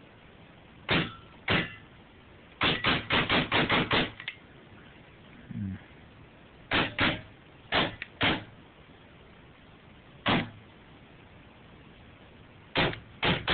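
Tippmann A-5 CO2 paintball marker being fired, with no paintballs loaded, so it shoots only CO2. There are about sixteen sharp shots: two single shots, then a quick string of about seven in just over a second, then more singles and pairs, and a fast trio near the end.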